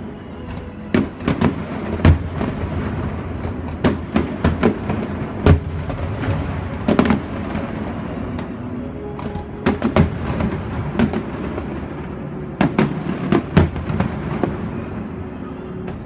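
Fireworks going off: a long series of sharp bangs, many in quick clusters of two to four, over a steady background rumble.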